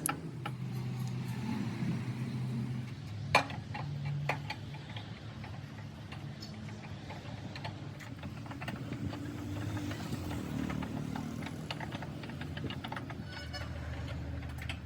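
Workshop sounds: a low, steady mechanical hum with scattered clicks and taps, and one sharp knock about three seconds in.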